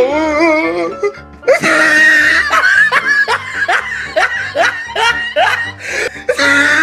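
A man laughing in a long run of falling 'ha' sounds, about three a second, over background music with a steady bass beat.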